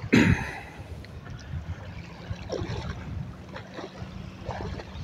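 Wind buffeting the microphone over shallow lake water lapping at the shore, with one short, loud burst of noise right at the start.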